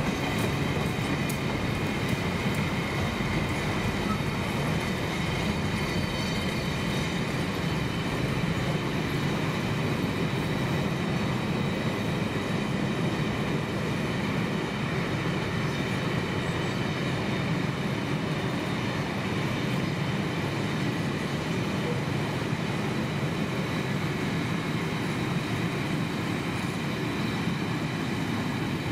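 Freight train of bogie hopper wagons rolling steadily past: a continuous rumble of wheels on rail with a steady high ringing tone above it, and a few sharp clicks in the first second.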